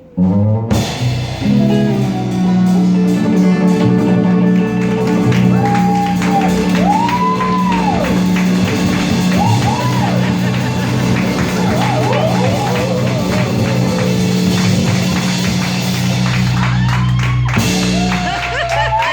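Live rock band jamming instrumentally: electric guitar bending notes over sustained bass and drums with cymbals. The band stops suddenly near the end.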